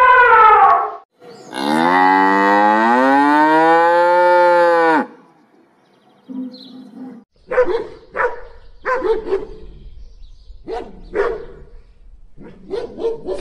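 Cow mooing: one long moo rising then falling in pitch near the start, then a string of shorter calls over a low rumble.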